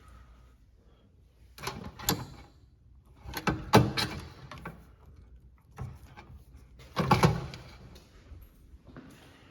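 Knocking and rattling in three short bursts, about two seconds in, near four seconds and about seven seconds in.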